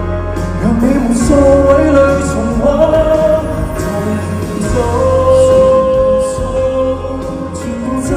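A male pop singer singing live into a handheld microphone over band accompaniment at an arena concert. He holds long notes, one about two seconds in and a longer one from about five seconds in.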